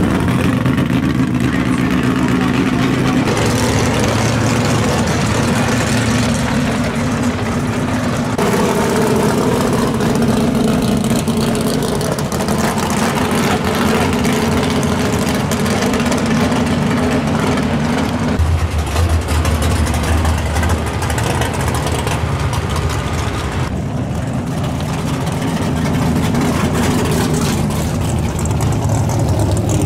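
Drag cars' big V8 engines running at low revs as the cars idle and roll slowly through the pits. The engine note changes several times as one car gives way to the next.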